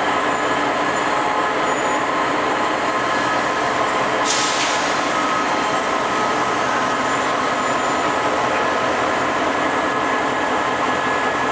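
Steady running noise of a train, with a short sharp hiss about four seconds in.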